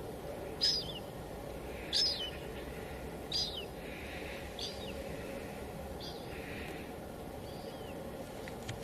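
A bird calling again and again, a short high note that slides downward, about once every second and a half, over a steady hiss of light drizzle.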